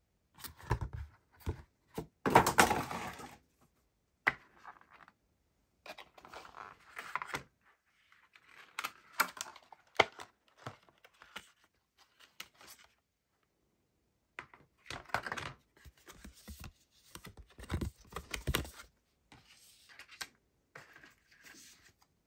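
Unboxing a phone case: a cardboard box and a clear plastic tray being slid, flexed and handled, in irregular bursts of rustling, scraping and sharp clicks. The loudest is a rough scrape about two to three seconds in.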